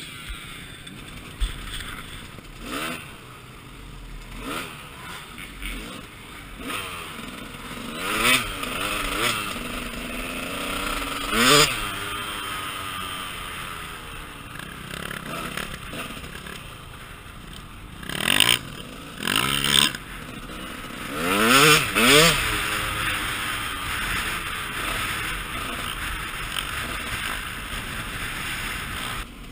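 KTM 200 EXC two-stroke dirt bike engine revving up and down while being ridden, heard from close by, with loud rushing bursts a few times.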